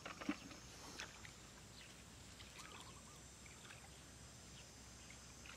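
Faint splashes and squelches of hands groping through shallow muddy water and mud, a few sharp ones in the first second, then quieter.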